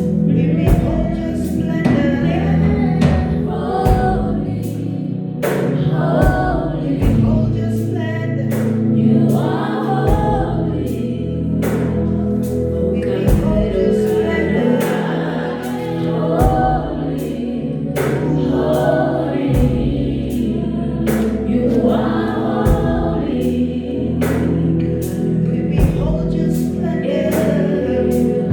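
Gospel worship music: a choir singing over a band, with a steady drum beat and a sustained bass line.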